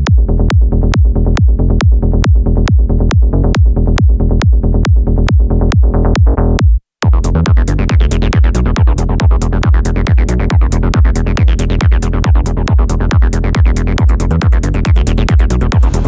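Trance music with a steady kick drum, about three beats a second, under a heavy bassline. The music cuts out completely for a split second about seven seconds in, then returns with a fuller, brighter mix.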